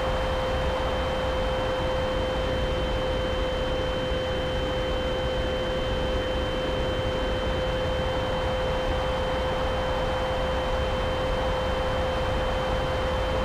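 RC model airplane in flight at steady throttle: its motor and propeller hold one unchanging high whine over a steady rush of airflow.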